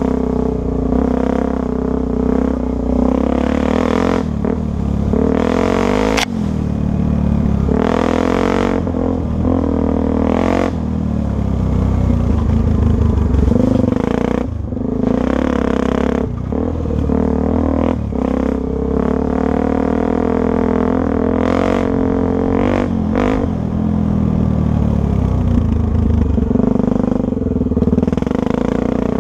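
Honda Tornado dirt bike engine running under way, its pitch rising and falling with repeated surges of revs every few seconds. A single sharp click sounds about six seconds in.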